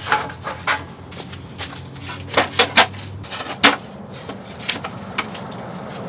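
Irregular clatter and knocks of hard objects being handled, a dozen or so sharp strikes at uneven intervals over a low steady hum.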